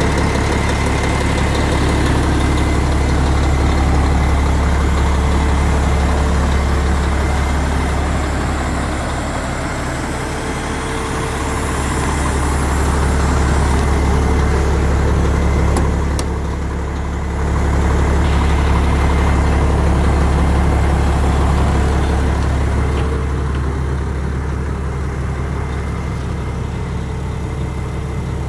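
Renault Magnum AE440 tractor unit's 12-litre straight-six diesel idling steadily, with a deep, even drone that dips briefly in level twice.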